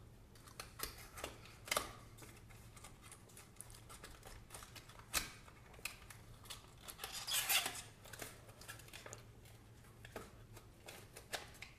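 Faint handling sounds of a small plastic mobile camera remote shutter: scattered light clicks and taps, with a brief rustle about seven seconds in.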